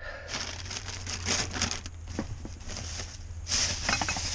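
Rustling and crinkling of a bag or packaging being handled, with a few light knocks, over a steady low hum.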